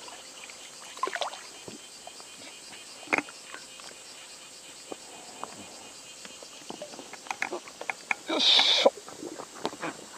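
Water around a float tube while a hooked bass is played: scattered small splashes and drips, and one louder splash about eight and a half seconds in.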